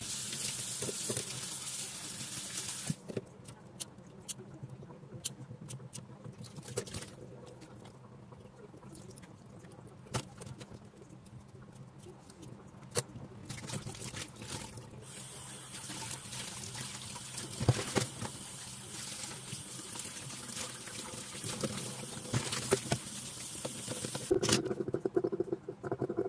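Tap water running into a stainless-steel sink and bowl while hands rinse and rub a whole raw chicken, with wet splashing and small knocks. The tap runs for the first few seconds, stops, then runs again from about the middle until shortly before the end.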